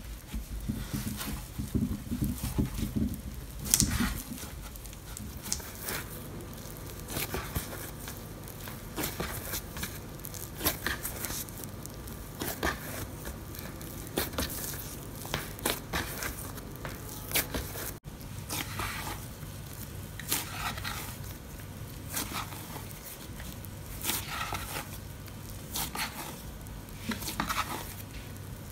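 Hands kneading soft bread dough on a wooden cutting board: the sticky dough tears, crackles and squishes as it is folded and pressed, with irregular soft taps against the board. There are dull thumps in the first few seconds while the shaggy mass is pushed together.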